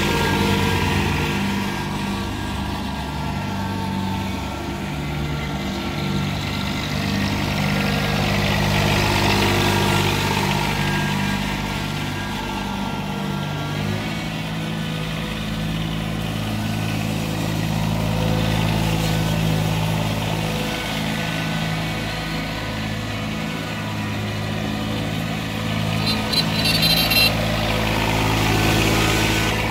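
Yanmar Ke-1 compact 4x4 tractor's diesel engine running steadily as the tractor is driven, its note shifting about halfway through. A few brief high-pitched chirps sound near the end.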